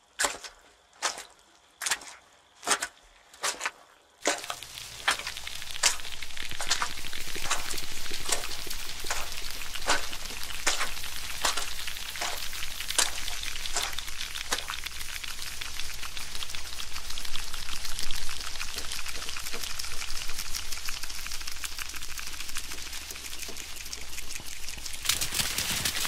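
Quick, evenly spaced footsteps, about two or three a second, then about four seconds in a steady hiss of heavy rain with crackling drops sets in, the footsteps still heard through it.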